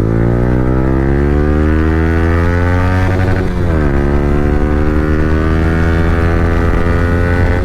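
Yamaha R15 V3 single-cylinder engine through an Akrapovic R9 slip-on exhaust with no dB killer, running loud under acceleration. The pitch climbs steadily, drops sharply for an upshift about three and a half seconds in, then climbs again.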